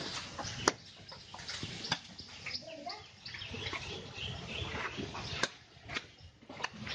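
Small birds chirping, with several sharp knocks and clicks mixed in, loudest about a second in and again near the end.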